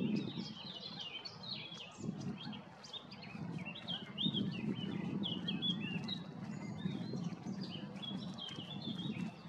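Many birds chirping in quick, overlapping short calls, over a low rough noise that comes and goes.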